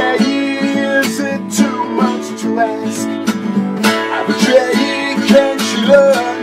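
Acoustic guitar strumming chords in a steady rhythm in an instrumental passage of a live singer-songwriter performance.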